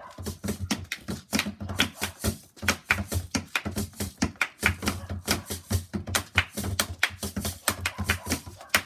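Rapid, irregular tapping of sticks on the plastic lid of a bucket-shaped stool played as a drum by two players at once.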